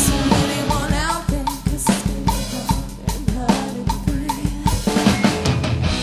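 Rock band playing live with a drum kit to the fore: a driving beat of bass drum, snare and cymbals, about two or three hits a second, over pitched band instruments.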